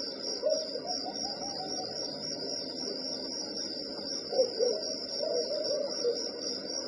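Crickets chirring in a nature-sound recording, a steady high trill, with a few short lower calls about half a second in and again around four to five seconds in.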